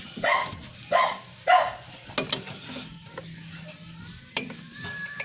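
A dog barking three times in quick succession, followed by a few sharp light clicks.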